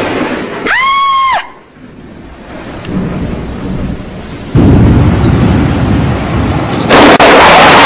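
Thunderstorm with rain: loud thunder noise fades early, a brief high-pitched sound that rises and then falls in pitch cuts in about a second in, and after a quieter stretch a sudden very loud thunderclap breaks in at about four and a half seconds, with another loud blast near seven seconds that drives the recording to its limit.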